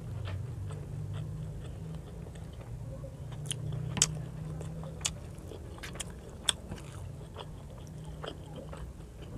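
Close-miked chewing of a mouthful of rice and fish, with sharp wet clicks and smacks that come thick from about three and a half seconds in, the loudest about four seconds in, over a steady low hum.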